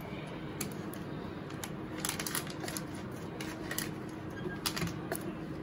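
A metal spoon clinking and scraping against steel vessels as chocolate cake batter is spooned into a small stainless steel cup: scattered light clicks at irregular intervals, over a faint steady hum.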